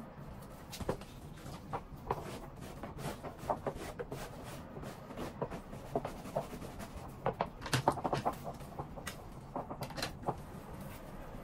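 Upright garment steamer in use: irregular gurgling pops and clicks over a faint steady hum, with a cluster of louder pops a little past the middle.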